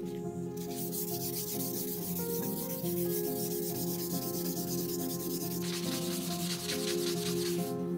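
Hand-sanding the flat of a carbon-steel meat cleaver blade with sandpaper on a block: a steady scratchy scrubbing of quick back-and-forth strokes that turns brighter and louder about six seconds in. Background music with held notes plays under it.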